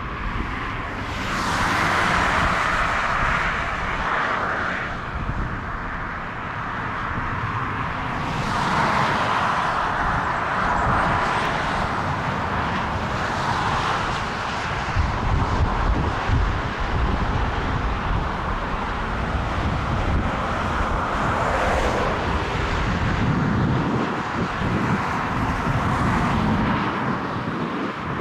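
Jet airliner engine noise mixed with heavy wind buffeting on the microphone, swelling and fading several times.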